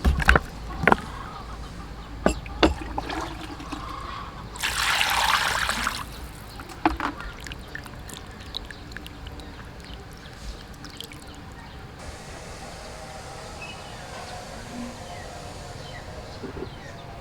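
Water pouring and trickling, with a loud pour lasting about a second and a half near the fifth second. A few sharp knocks come in the first three seconds.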